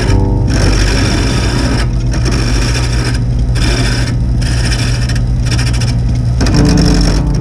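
An electric woodworking machine runs with a steady low hum while wood is cut or scraped. The cutting noise breaks off briefly about once a second.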